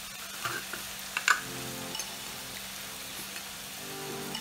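Diced vegetables sizzling in a frying pan, with a couple of light clicks about a second in as a metal spoon scoops spice from a glass jar.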